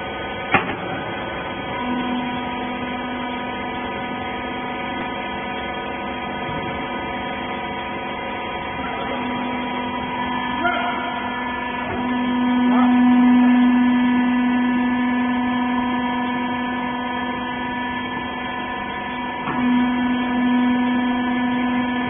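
Hydraulic rag baler's electric motor and pump running with a steady hum while the ram presses rags into a bale, the hum growing louder about midway and easing again toward the end. A sharp click comes just after the start.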